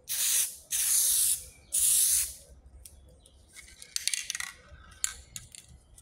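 Aerosol can of plastic-coating spray hissing in three short bursts, each about half a second. A few sharp clicks and light rattles follow in the second half.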